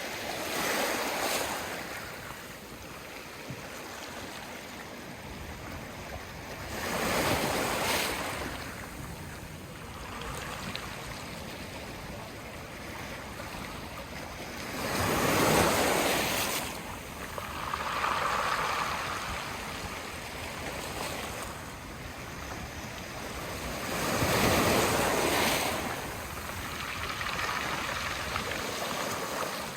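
Sea waves washing in on the shore: four large surges, each swelling and falling away over a second or two, about eight seconds apart, with smaller washes between them.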